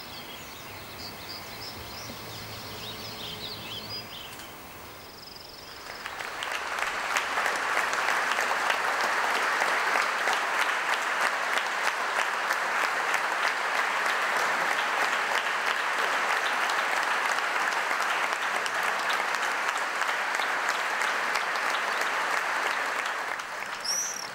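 Faint bird chirps, then from about six seconds in a crowd applauding, a steady clapping that lasts until near the end.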